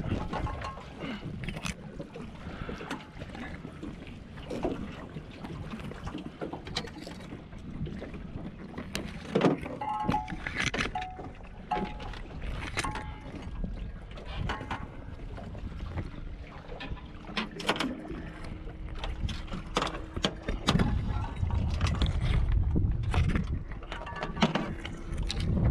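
Scattered knocks and clicks from bait fish and gear being handled in a jon boat, over a low rumble that grows louder near the end.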